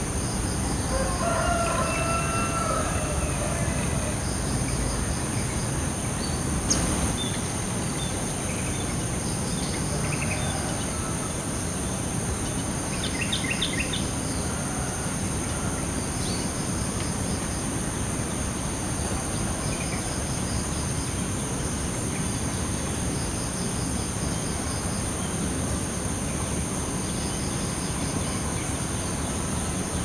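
Outdoor ambience of wild birds: a rooster crows once about a second in, then short high chirps and a quick run of chirps come here and there over a steady noisy rumble. Two thin, constant high tones run underneath.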